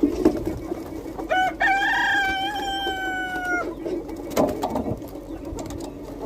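A rooster crowing once, starting about a second in: a few short notes, then a long held final note of about two seconds. Under it is the low steady murmur of the chicken flock.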